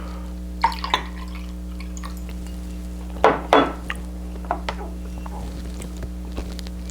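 Utensils clinking against dishes during a meal: a few sharp taps and clinks, the loudest pair about three seconds in, over a steady low electrical hum.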